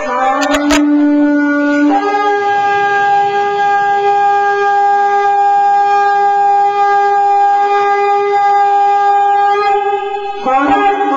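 Berrante, the Brazilian cattle horn, blown in long held notes: a lower note for about two seconds, then a higher one held steady for about eight seconds, then a break into quicker, changing notes near the end.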